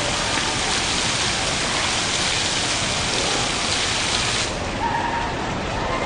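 Streams of water from an overhead fountain falling and splashing into the pool below, a steady rain-like hiss. The falling water cuts off about four and a half seconds in, leaving a duller background.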